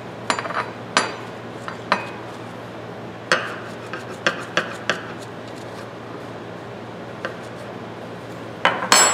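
Steel plier halves clinking and tapping against each other and the bench while being rubbed with a rag: a scattering of sharp metallic clicks, some ringing briefly.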